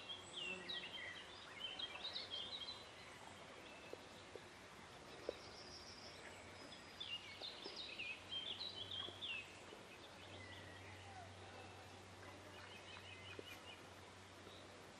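Songbirds singing: two quick phrases of high, fast, falling notes, one at the start and another about seven seconds in, with softer repeated notes near the end. Underneath is a faint steady outdoor hum.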